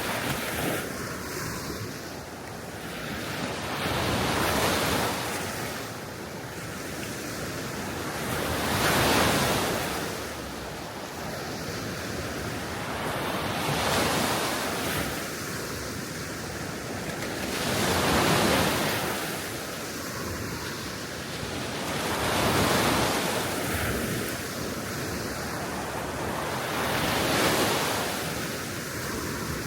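Gentle sea waves washing ashore, one soft surge about every four to five seconds, over a steady wind.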